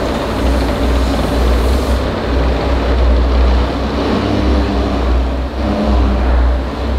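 Ferrari Portofino's twin-turbo V8 idling, a deep, uneven low rumble.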